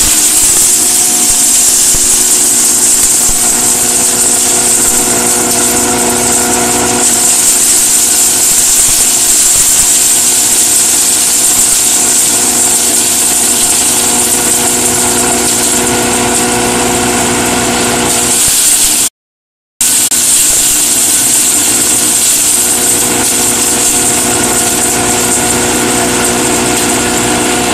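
Hammer mill running loud and steady while crushing palm kernel shell: a constant grinding hiss with a steady hum of tones beneath it. The sound drops out for under a second about two-thirds of the way through, then carries on unchanged.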